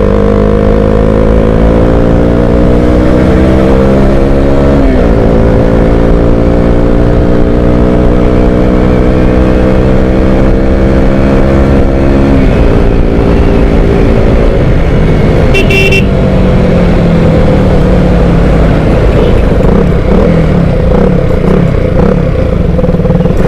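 Motorcycle engine pulling under acceleration, its pitch climbing steadily and dropping sharply at gear changes about 5 and 12 seconds in, then running more unevenly. A short horn toot sounds about 16 seconds in.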